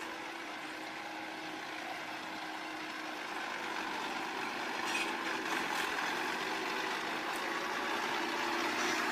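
A vehicle's engine running steadily, growing slowly louder, with a few faint clicks about five seconds in.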